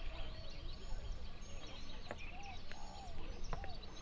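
Outdoor ambience with birds chirping and calling intermittently, short arched whistles and high peeps scattered throughout, over a low steady background hum and a few light clicks.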